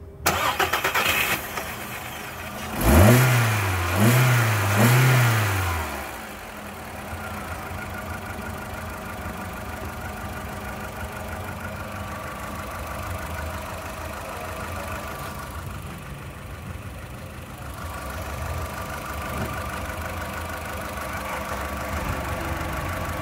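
The 2014 Volkswagen Polo's 1.4-litre four-cylinder petrol engine starts loudly, then settles. About three seconds in it is revved three times in quick succession, each rev rising and falling, and it then idles steadily.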